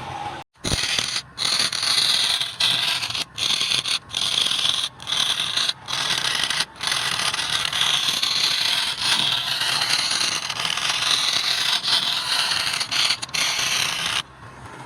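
A hand turning tool scraping and cutting against wood spinning on a lathe: a loud, harsh scratchy noise with a wavering hiss, broken by many sudden short gaps.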